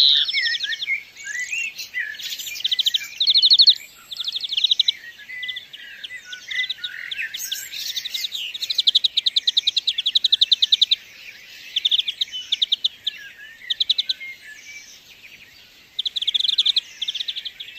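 European greenfinch singing: repeated rapid trills, each about a second long, mixed with twittering notes.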